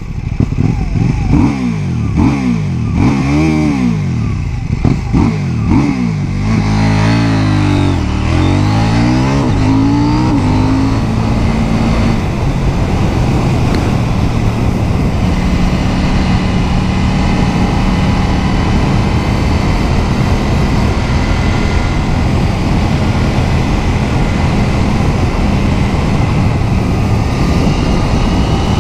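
KTM 790 Duke's parallel-twin engine blipped up and down several times at standstill, then pulling away and accelerating up through the gears with rising, stepped revs. From about twelve seconds in it settles into steady cruising with wind noise over the microphone.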